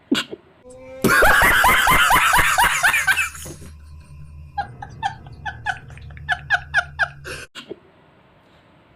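A burst of loud laughter about a second in, trailing off into softer, rhythmic chuckling that stops about seven and a half seconds in.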